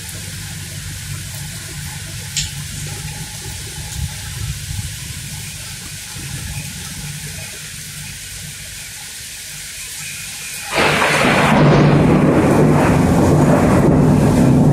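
Rain falling in a thunderstorm, with a low rumble under it. About eleven seconds in, a much louder rushing noise comes in suddenly and holds.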